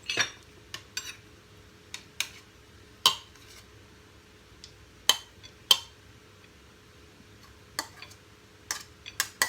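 Utensils knocking and clinking against a bowl and plate while the salad is served out: a dozen or so scattered sharp strikes at uneven intervals, the loudest about three and five seconds in.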